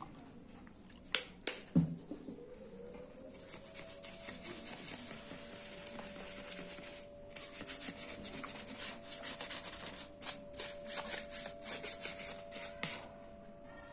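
Small brush scrubbing a phone's charging port and casing with rubbing alcohol, a dry scratchy brushing. Near the end it comes in quick strokes of about three or four a second. Two sharp clicks come about a second in.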